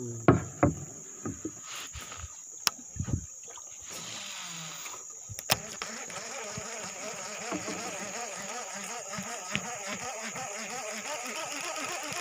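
Steady high-pitched insect buzz, with several sharp knocks and clicks in the first few seconds. From about halfway a low, rippling hum joins and grows a little louder.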